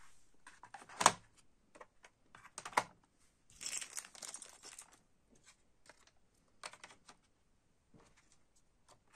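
Plastic CD jewel case and cassette case handled against a cardboard box: scattered clicks and knocks, the loudest about a second in and near three seconds, with a stretch of plastic packaging crinkling around four seconds.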